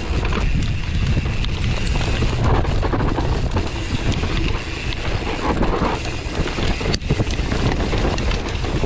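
Wind buffeting a bike-mounted action camera's microphone over the rumble and rattle of a mountain bike riding fast down a dry dirt trail, with a sharp knock from the bike about seven seconds in.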